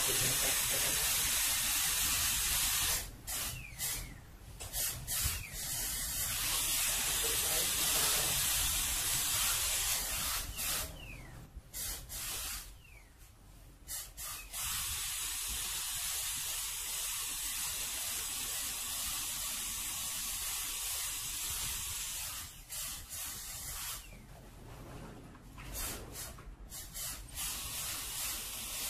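Slow-speed dental contra-angle handpiece running with a steady hiss, spinning medicament into the root canal. It stops for a moment and starts again several times.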